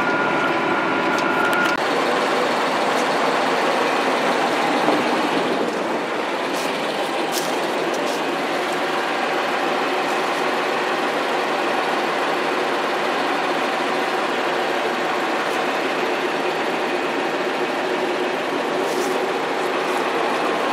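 Big diesel engine of a green farm machine running steadily: a dense, even mechanical drone.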